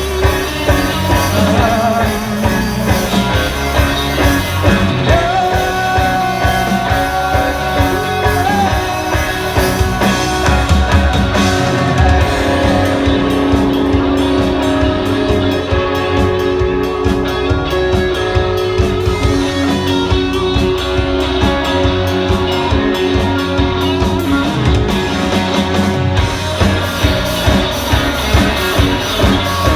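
Rock band music in an instrumental passage between sung lines, with guitar and drum kit and long held notes.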